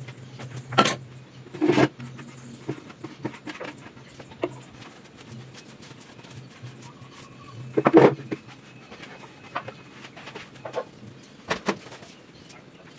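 Scattered knocks and bumps, with a few louder thumps, over a low steady hum that stops about eight seconds in.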